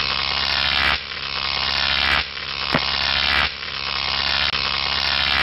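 A harsh electric buzz with a mains-hum undertone, coming in surges of about a second each with brief dips between them.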